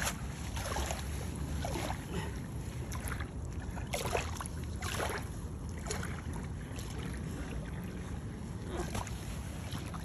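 Steady low rumble of wind on the microphone and the sea, with soft crunching sounds on sand about once a second.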